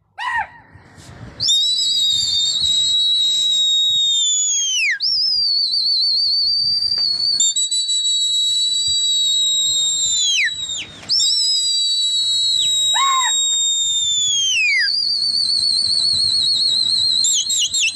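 A person whistling shrilly at a flock of pigeons in flight: about five long whistles one after another, each held a few seconds with a slight waver and falling away at its end, then a quick warbling whistle near the end.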